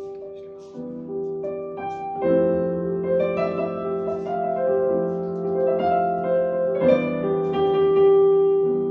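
Slow, improvised piano-voiced chords and melody played on a red Nord stage keyboard, notes left ringing with new chords struck about a second in, around two and three seconds, and most strongly near seven seconds.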